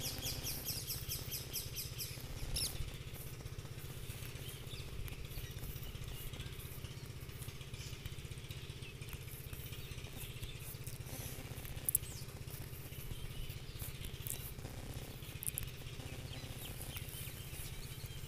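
Faint background room sound: a steady low hum with birds chirping outside, opening with a quick run of chirps and then a chirp here and there.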